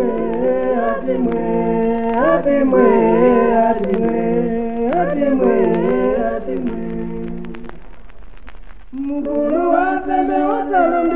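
Several voices singing slow, held notes in harmony, with no clear beat. They pause briefly about eight seconds in, then start again.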